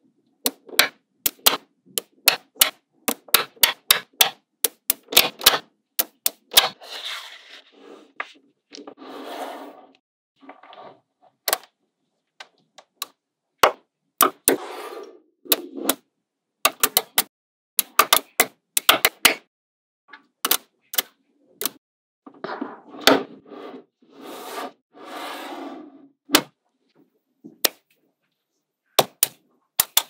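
Small magnetic balls clicking and snapping together one by one in an irregular run of sharp clicks. A few noisier stretches of about a second come between the clicks.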